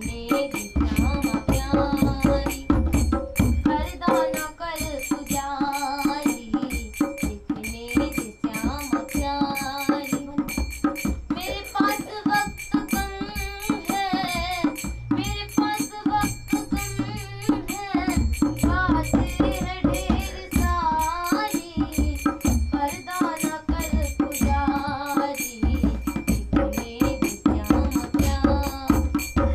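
A girl singing a devotional bhajan while beating a two-headed dholak barrel drum with her hands; the drum keeps a steady rhythm of deep thumps and sharper slaps under the melody.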